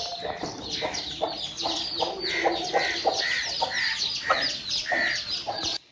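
Chickens clucking in a run of short, repeated calls, with small birds chirping over them. The sound cuts off suddenly near the end.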